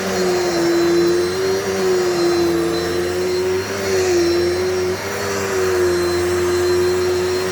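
Dirt Devil Multi-Surface vacuum cleaner running: a steady motor whine that wavers slightly in pitch over a rush of air.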